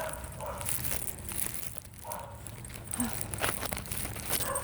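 Crackling and crunching of footsteps through dry brush and litter, a scatter of short irregular clicks.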